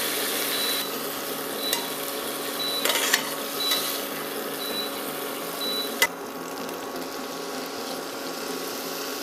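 Beef strips sizzling in hot oil and butter in a stainless steel sauté pan, with a few short scrapes and clicks of the spatula against the pan as the meat is lifted out. A sharp click comes about six seconds in, after which the sizzle is a little quieter.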